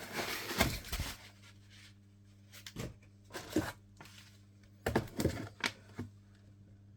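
Cardboard box and packaging being handled during an unboxing: a rustle in the first second, then scattered short knocks and thuds.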